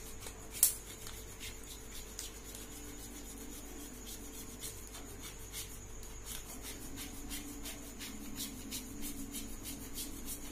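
A chocolate bar rubbed over a flat metal hand grater: a quick, even run of short rasping strokes, with one sharp click about half a second in.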